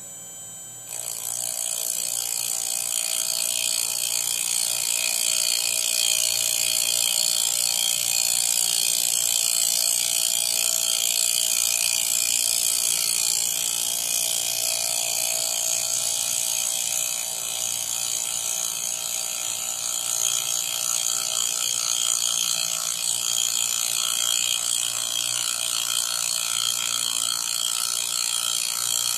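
CNC router spindle with a fly cutter skimming the top face of a hardwood block. It makes a steady whine together with cutting noise, which gets much louder about a second in as the cutter bites into the wood.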